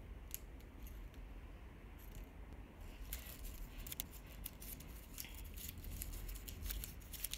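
A crumpled paper slip being unfolded by hand, faint crinkling: a few scattered crackles at first, then dense crinkling from about three seconds in.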